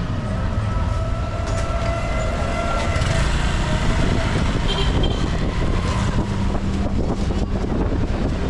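An engine running steadily under a rushing noise, with a faint steady whine above it.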